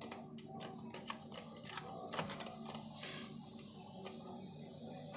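A handful of light clicks and taps in the first two seconds, then a brief hiss, over a steady low hum.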